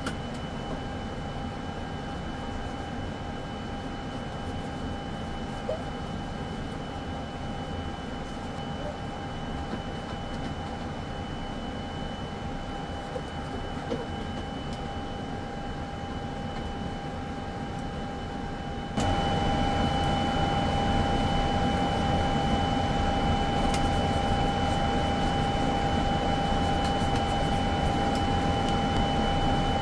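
Steady ventilation hum of a powered airliner flight deck, with two constant whining tones over a low rumble. It gets abruptly louder about two-thirds of the way through and stays level.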